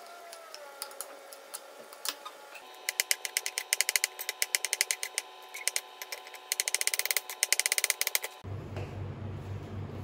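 Kitchen knife chopping cucumber on a cutting board: fast runs of sharp strikes, about five or six a second, in two bursts. These follow a few light clicks and scrapes of a knife peeling bellflower root. Near the end a steady low hum takes over.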